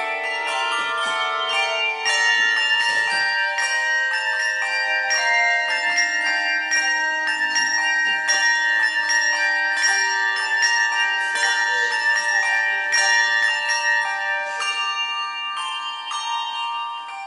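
A handbell choir playing, with many brass handbells struck together in chords and left ringing. The sound tapers off over the last few seconds.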